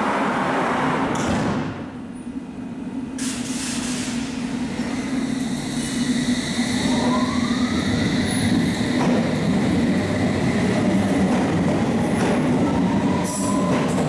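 London Underground S stock train pulling away from the platform and gathering speed. Its traction motors make a whine that rises in pitch from about six seconds in, with another rising whine near the end, over a steady low rumble of the train.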